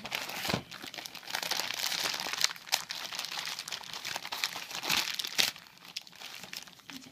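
A grey plastic postal bag crinkling and rustling as it is handled and crumpled open by hand, with sharp crackles now and then.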